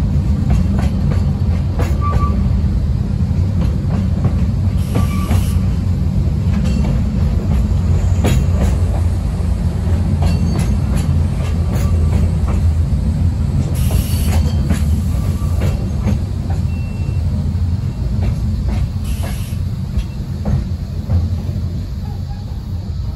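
Ikawa Line passenger train running, heard from inside the coach: a steady wheel-on-rail rumble with scattered clicks from the track and a few brief high wheel squeals. The rumble eases a little near the end as the train slows into Abt Ichishiro station.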